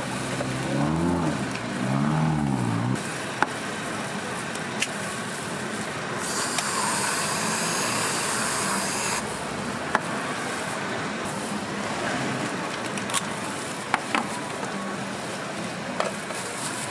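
Whipped cream hissing out of a handheld dispenser nozzle for about three seconds in the middle. Before it, a motor's pitch rises and falls twice, over a steady background of street noise, with sharp clicks now and then.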